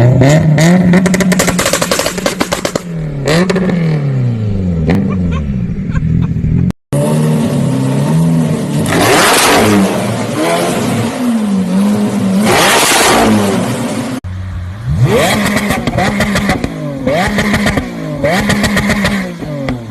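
Car engines revving hard through loud exhausts, the pitch climbing and dropping again and again, with sharp crackles and pops from the exhaust. Three separate clips, cut abruptly about seven and fourteen seconds in.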